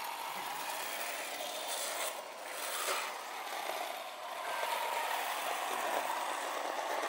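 Electric motor and gear whine of a scale RC rock crawler driving over rock and grass, running steadily with two brief dips.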